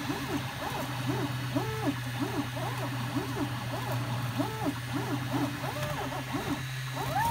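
Stepper motors of an FDM 3D printer whining in quick tones that rise, hold and fall, several a second, as the print head moves back and forth printing a part. Under them is a steady low hum.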